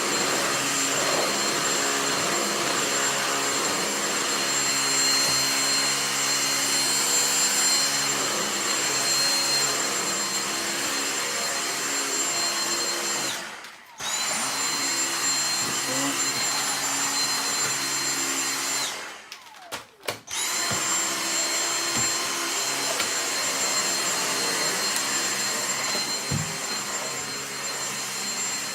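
Vacuum cleaner running with a steady high whine, switched off and back on twice; each time it restarts the motor's whine rises back up to speed.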